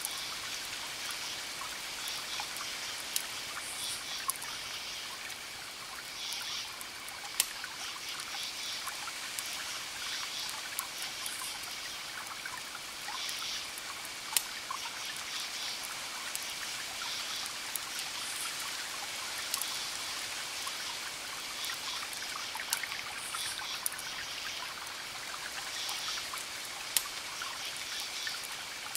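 Wood fire crackling steadily, with sharp louder pops every few seconds. Short high chirps come in repeated bursts over it.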